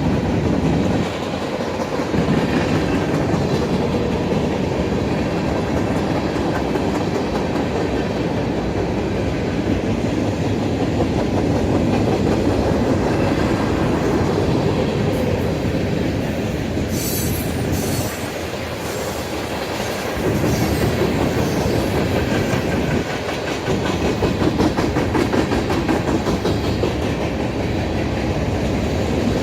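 Freight cars of a manifest train rolling steadily past, their wheels clattering continuously over the rails. About two-thirds of the way through comes a brief high metallic screech from the wheels.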